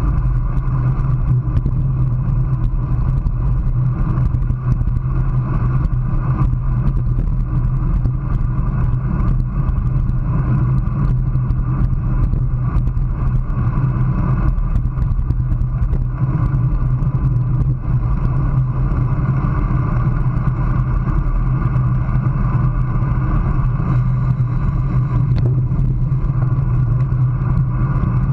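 Steady rush of wind over a handlebar-mounted GoPro on a road bike at about 24 mph, with the low rumble of the bike's tyres rolling on asphalt.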